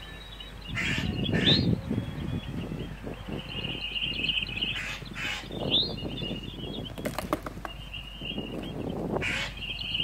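Eurasian jay giving several short, harsh calls, a few of them ending in a quick upward sweep, over irregular rustling close to the microphone.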